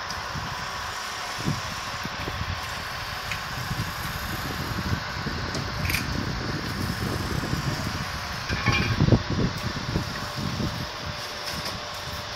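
Fire engine running steadily close by, with a few short knocks and clanks over it and a louder stretch about nine seconds in.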